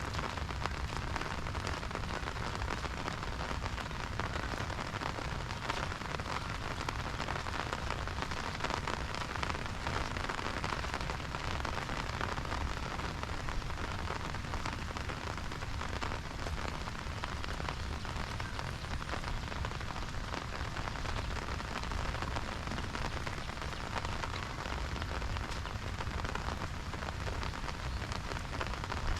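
Steady rain falling on an umbrella held overhead and on the ground around it, an even, unbroken hiss of drops.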